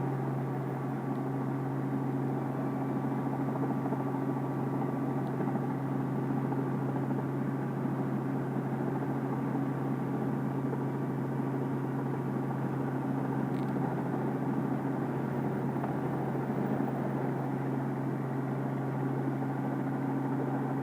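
Robinson R44 Raven II helicopter running, heard from inside the cabin: a steady engine and rotor drone with a low, even hum.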